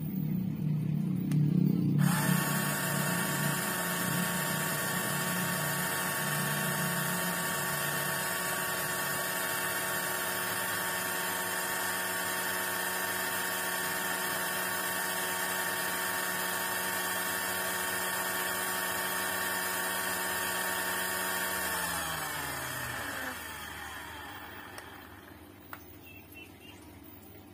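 Electric motor of a cordless 21-volt grass cutter spinning its blade with no load at about 11,000 RPM, fed about 20.6 volts: a steady motor whine over a hum, lower and rougher for the first two seconds. About 22 seconds in it winds down with falling pitch and stops.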